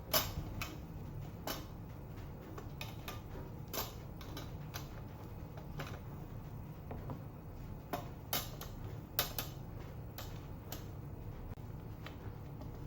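Scattered light clicks and taps of hands-on kitchen food preparation, coming irregularly over a low steady hum.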